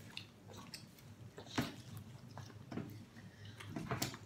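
A person chewing and eating close to the microphone, with scattered small clicks and taps.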